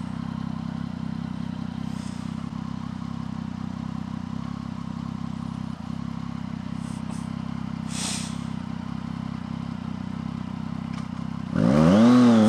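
Triumph Street Triple three-cylinder motorcycle engine idling steadily at a standstill. Near the end it revs up sharply and drops back as the bike pulls away.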